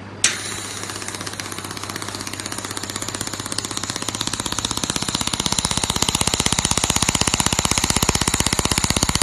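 500-watt handheld laser welder welding galvanized steel: a sharp click as the beam fires, then a fast, even pulsing crackle that grows louder over the first few seconds and keeps going.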